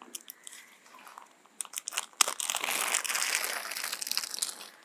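Crinkling of the newspaper and plastic cover bags wrapped around hanging bitter gourds as a fruit is handled for harvest: a few light clicks, a sharp snap about two seconds in, then dense rustling for about two seconds.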